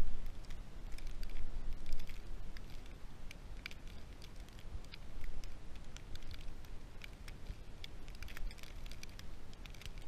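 Deep snow crunching and crackling against the camera microphone as it is pressed and moved in the snow: many irregular small clicks over a low rumble on the microphone.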